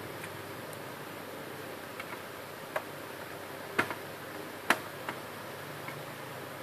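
A handful of sharp, irregular clicks over a steady hiss, the loudest two a little under four and five seconds in.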